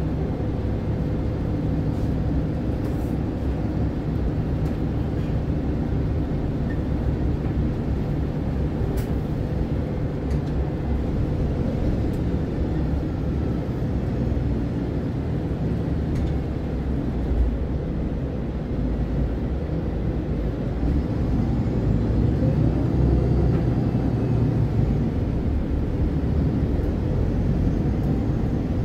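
MAN Lion's City Ü city bus's diesel engine and drivetrain running as the bus drives, heard in the passenger cabin as a steady low rumble. It grows a little louder with rising engine tones in the last several seconds.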